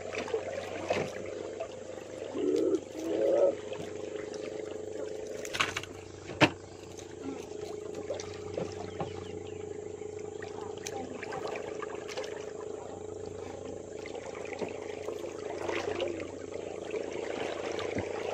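A small motor running steadily with a low, even hum. Two short muffled bumps come a few seconds in, and a sharp click a little over six seconds in.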